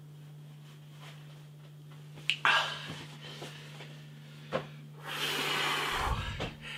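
A man breathing hard through his mouth from the burn of ghost-pepper noodles: a sharp intake about two and a half seconds in, a few small clicks, then a long blowing exhale near the end.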